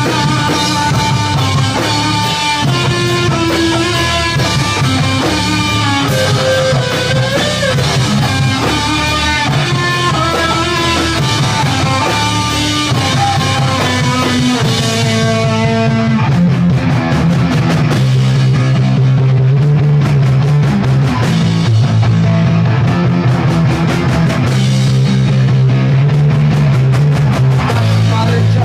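Live rock band playing loud, with electric guitars, bass and drum kit. About halfway through, the top end thins out and long, low held chords take over.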